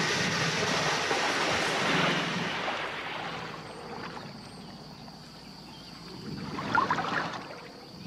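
Water splashing and sloshing, loud for the first three seconds, then quieter, with a brief louder splash near the end.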